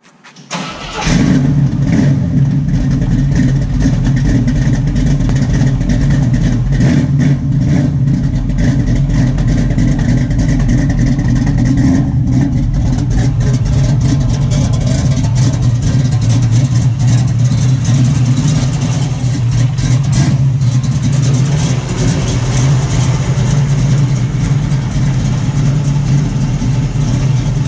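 A 1968 Chevrolet Camaro SS's 383-stroker small-block V8 running steadily, heard close at its exhaust tips. It sets in loudly about a second in.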